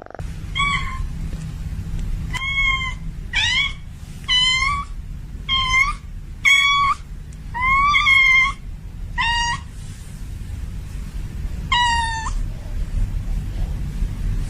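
A female domestic cat in heat calling repeatedly. There are about nine short meows, each rising and then falling in pitch, with a pause near the end. A steady low rumble runs underneath.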